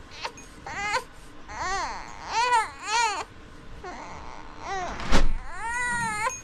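A baby babbling and fussing in a string of short cries that rise and fall in pitch, ending in a longer cry. A thump about five seconds in.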